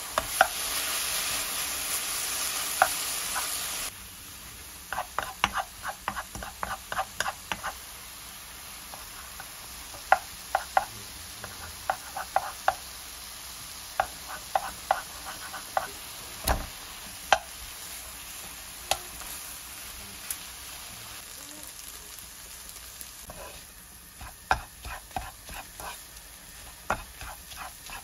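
Bacon and kimchi sizzling in a frying pan, loudly for the first four seconds and then more quietly, while a wooden spatula stir-fries them with many quick taps and scrapes on the pan.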